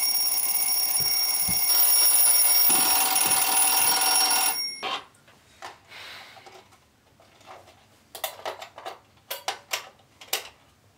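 Alarm clock ringing, a really loud, obnoxious ringing noise that grows louder about two seconds in and cuts off suddenly just under five seconds in. A few seconds later come scattered light clicks and taps.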